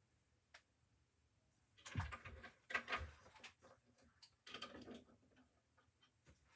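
Close handling sounds of plastic clip-on fake nails being fitted onto fingertips: a single small click about half a second in, then bursts of quick clicks, taps and rustling about two seconds in and again past the middle.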